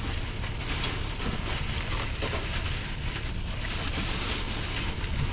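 Steady low rumble and hiss of a car's cabin, engine and road noise, with no sudden events.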